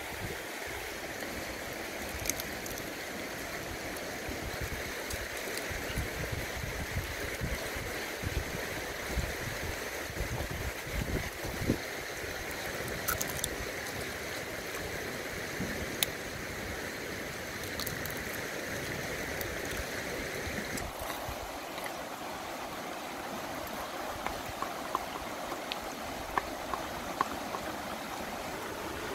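A shallow river running steadily over stones, with scattered small clicks. The water sound changes abruptly about two-thirds of the way through.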